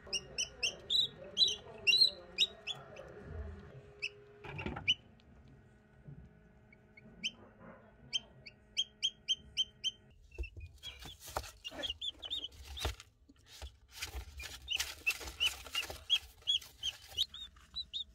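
Newly hatched chicken chicks peeping: short, high peeps in quick runs of about three a second. About ten seconds in there is a stretch of rustling and knocks as a chick is handled.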